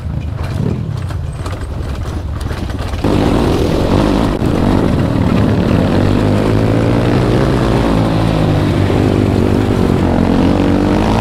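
Dirt bike engine running, suddenly much louder about three seconds in, then wavering in pitch as the throttle changes.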